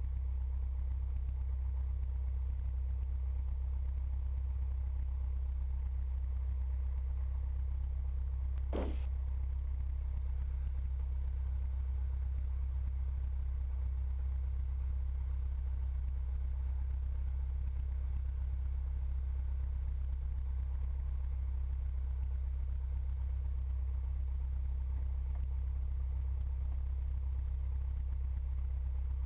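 Cessna 172's piston engine and propeller idling on the ground: a steady, unchanging low drone. One short click about nine seconds in.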